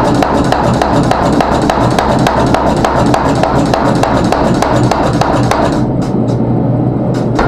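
Power hammer pounding a glowing meteorite Damascus billet in rapid, even blows, several a second, over a steady motor hum. The blows thin out briefly about six seconds in, then pick up again.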